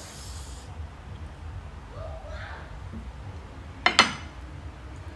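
A sharp clink of something hard struck against a dish, about four seconds in, over a steady low hum.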